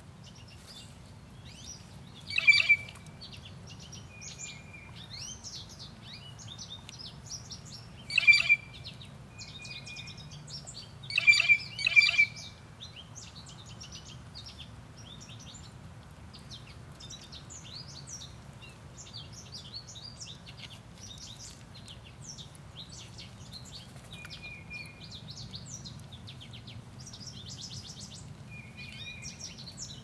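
Blue jays calling: four loud calls, about two and a half, eight, eleven and twelve seconds in, over faint high chirping throughout and the steady low rush of a small waterfall.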